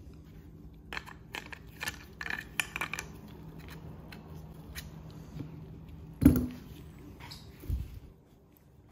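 Handling noise as a plastic mounting bracket is fitted onto an LED fog light pod with gloved hands: a run of light clicks and rubbing in the first few seconds, one sharp knock about six seconds in, and a duller thump shortly after.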